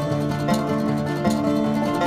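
Background instrumental music: a plucked-string tune with notes changing about every half second.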